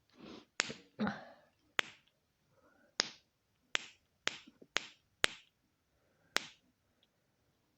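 Snapper fidget toy being snapped over and over: about eight sharp, separate snaps at uneven intervals.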